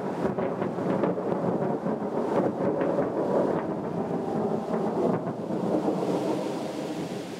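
Distant thunder rolling: a long rumble with crackling peaks that fades away toward the end.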